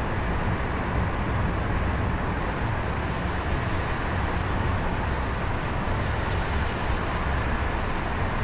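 Steady hum of city road traffic heard from above, with a continuous low rumble and no distinct events.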